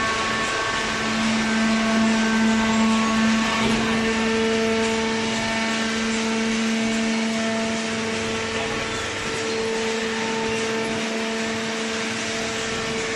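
Hydraulic baler's motor and pump running: a steady machine hum with a held whine whose pitch stays level while its strength swells and eases.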